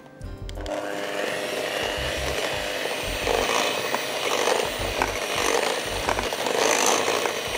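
Electric hand mixer running, its twin beaters whisking chocolate cake batter in a glass bowl. The motor starts just after the beginning and runs steadily, the sound swelling and fading about once a second as the beaters move through the batter.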